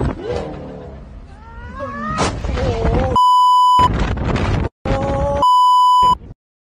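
Two steady 1 kHz bleeps, each about half a second long, of the kind used to censor swearing, dropped into the video's audio about three seconds in and again about five and a half seconds in. Before and between them are rising pitched sounds. The audio cuts out abruptly shortly after the second bleep.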